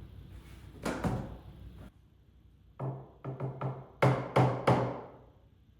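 A series of knocks on wood, like blows from a hammer or mallet during assembly: one about a second in, a quick run of about five lighter taps around three seconds, then three heavy blows a few tenths of a second apart.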